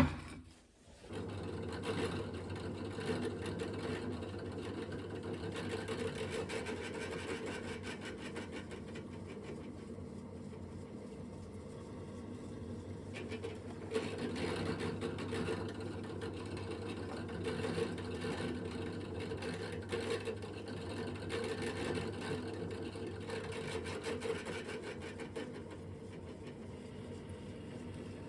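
Electric drill starting about a second in and running steadily, drilling bolt holes through welded steel pieces, its motor note swelling slightly as the load changes.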